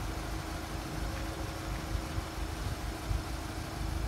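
Class 66 diesel locomotive's two-stroke V12 idling while its container freight train stands waiting at a signal: a steady low engine hum with one held tone over a low rumble.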